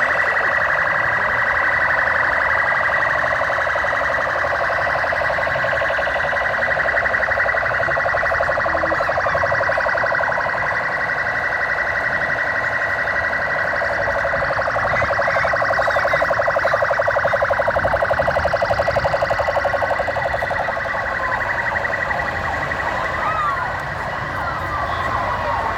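Several police vehicle sirens sounding together, their fast warbling and sweeping wails overlapping in a loud, continuous din.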